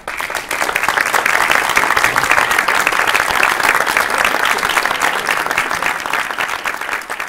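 Audience applause breaking out suddenly and continuing as dense, even clapping, easing slightly near the end.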